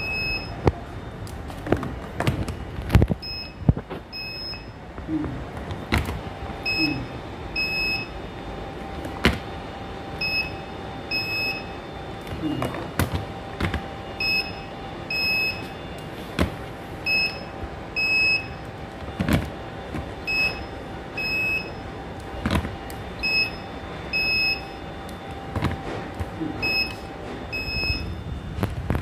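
Handheld induction cap sealer beeping as it is pressed onto engine oil bottle caps one after another: many short, high beeps, often two close together, with sharp knocks every few seconds as the sealing head meets the caps. A faint steady hum runs through the middle.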